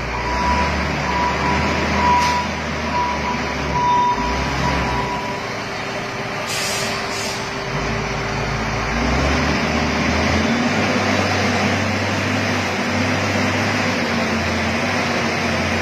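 YX657 wheel loader's Cummins diesel engine running, with its reversing alarm beeping about once a second until about five seconds in. Two short hisses come a couple of seconds later, and the engine then runs steadily under load as the loader drives forward into the pile.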